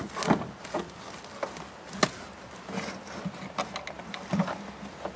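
Irregular knocks, clicks and scraping as an old fiberglass heater box is wiggled loose and pulled out from under the dash, with the loudest knock about two seconds in.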